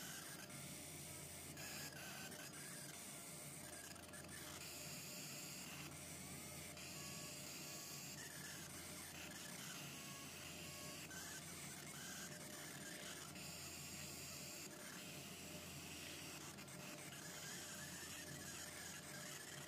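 Fiber laser machine drilling flat glass: a faint high hiss that starts and stops in runs a second or two long as the beam works the glass, over a steady low machine hum.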